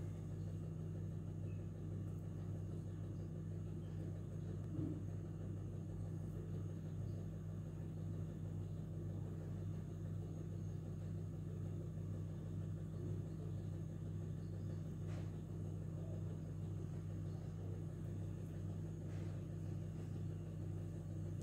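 A steady low hum with no change throughout, broken only by a few faint clicks.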